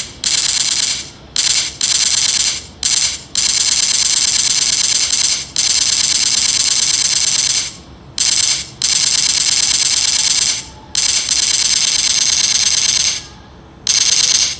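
Loud spurts of rapid rattling, about ten of them, starting and stopping abruptly like bursts of automatic gunfire, made to go with mock-firing a deck anti-aircraft gun.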